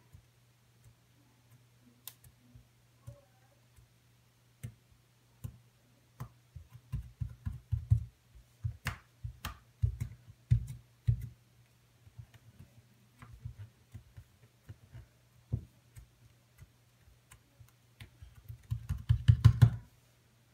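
Fingers kneading and poking a small lump of homemade glue slime on a wooden tabletop: irregular soft taps and clicks. They come in a busy flurry about seven to eleven seconds in and again, loudest, just before the end.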